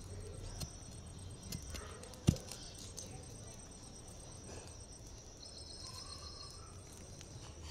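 Long iron digging bar jabbing into soil to dig a planting pit, a few dull thuds with the loudest about two seconds in. Insects chirr steadily in the background.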